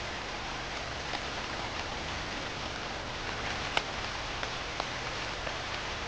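Steady rain falling, an even hiss dotted with single drops ticking, one sharper tick a little past the middle.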